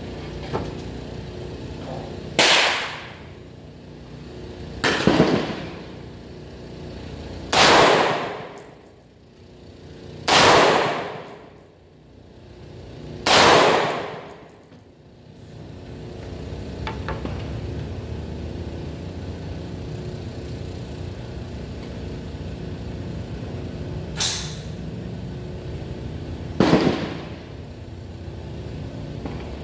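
Semi-automatic M16A2-pattern rifle firing single shots, five in a row two to three seconds apart, each ringing out under the covered range's roof. Two more shots come near the end, the first of them fainter.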